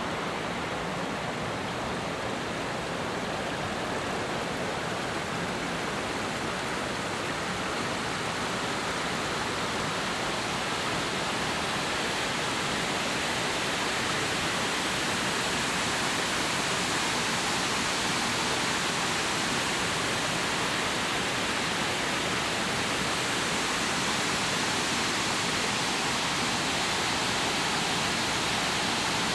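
Rain falling steadily during a storm: a constant, even hiss that grows a little brighter about ten seconds in.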